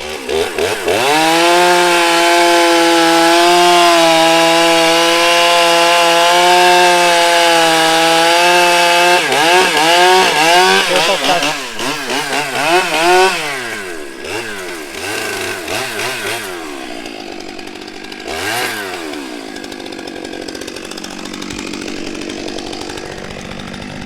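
Two-stroke chainsaw revving up and running at steady full throttle for about eight seconds while crosscutting a log to length. It then blips the throttle several times and drops back to idle.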